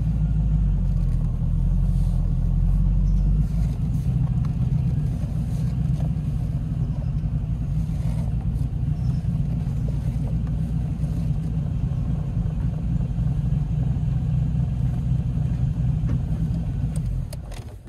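TVR's V8 engine burbling at low speed, heard from the open-topped cockpit. There is a heavier low rumble for the first few seconds, then a steady burble that fades away at the end.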